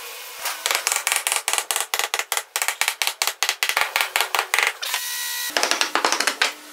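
Steel hammer rapidly tapping a wooden block laid on a pine board, several sharp blows a second, driving the glued board down onto its joint pegs. There is a short pause with a steady hiss before a last handful of blows.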